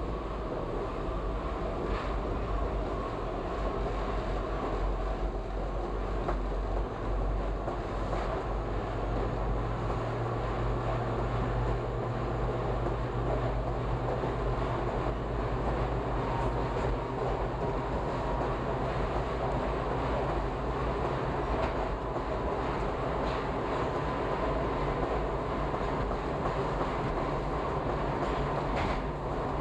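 Toronto subway train running through a tunnel: a steady rumble of wheels on rail, with a few sharp clicks from the track and a low hum through the middle stretch.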